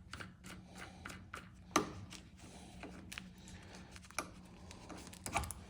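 Scattered light clicks and knocks of metal hand tools being handled and loosened on a supercharger snout-machining fixture, with one sharper knock about two seconds in, over a faint steady hum.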